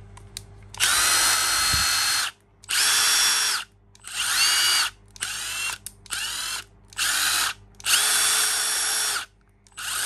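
Milwaukee cordless power tool running with no load in about eight short trigger pulls. Each time the motor whine rises quickly and holds, settling at a different speed as the variable-speed trigger is squeezed.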